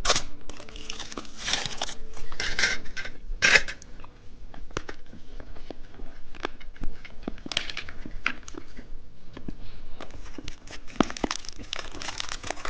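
Candy wrappers being torn open and crinkled in bursts, with scattered small clicks and taps of handling in between.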